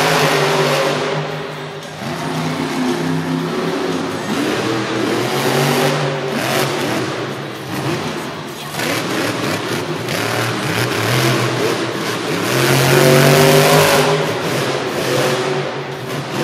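Monster truck's supercharged V8 engine revving hard, its pitch rising and falling again and again. It is loudest about thirteen seconds in.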